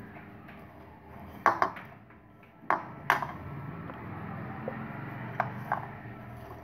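Plastic spoon stirring grated cheese, chopped onion and spices in a plastic bowl, knocking against the bowl in a handful of sharp taps spread through, with soft scraping between.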